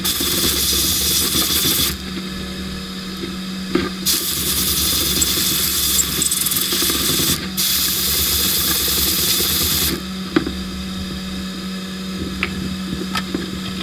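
Sandblast gun in a blast cabinet firing abrasive at a small brass part: three bursts of loud hiss, each a few seconds long, with the trigger released in between. A steady low hum runs underneath, and a few light clicks sound in the pauses.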